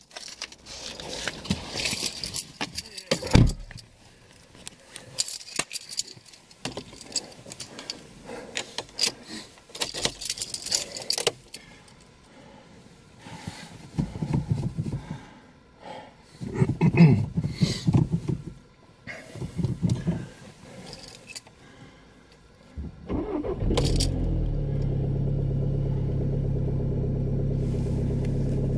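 Keys jangling and clattering with scattered handling clicks, then, about 23 seconds in, a VW TDI diesel engine cranks for about a second and starts, settling into a steady idle. It is a cold start at −8 °C with glow plugs in bad condition.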